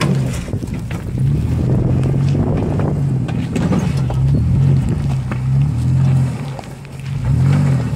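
Ford Explorer Sport Trac's 4.0-litre V6 engine working under load as the solid-axle truck crawls over a rocky mound, its revs rising and falling, easing off briefly near the end and then picking up again. Tyres crunch over rocks and gravel.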